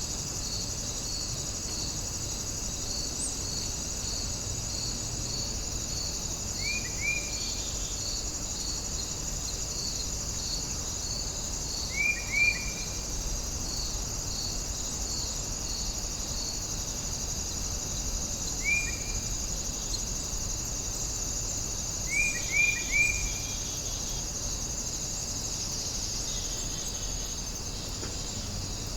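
Cricket and insect chorus: a steady high-pitched trill throughout, joined during the first half by a second insect pulsing at a regular beat. A few brief groups of short chirps from another animal stand out four times, the loudest sounds here.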